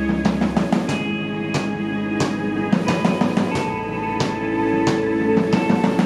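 A live band playing without vocals: a drum kit keeps a steady beat of kick, snare and cymbal hits under held electric guitar notes and an electric bass line. The deep bass note at the start stops about a second in and the parts move on.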